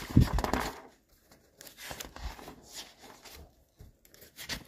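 Paper rustling in irregular bursts as pages of notes are leafed through in a search, loudest right at the start.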